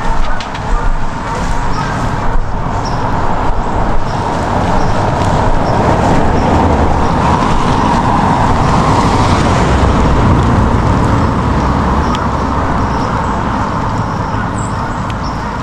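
Pickup truck driving along: steady engine and tyre rumble that builds a little in the middle and eases toward the end.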